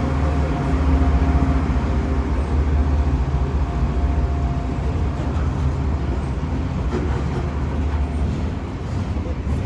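Diesel freight locomotives running past with a loud, steady low engine drone. After about five seconds the drone fades into a rougher, even noise of the train rolling on.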